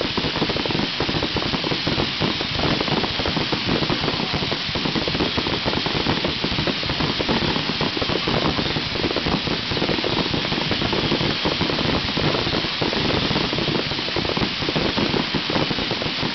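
Fireworks finale barrage: many shells bursting and crackling at once, a dense, unbroken stream of pops and crackles with no single standout bang and no pause.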